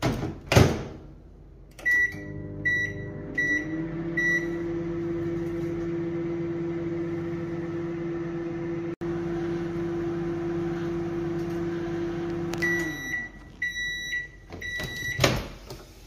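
Microwave oven door shut with a thump, then four short key beeps as it is set. The oven runs with a steady low hum that rises a little in pitch as it gets going. About thirteen seconds in it stops with a run of beeps, and the door is pulled open near the end.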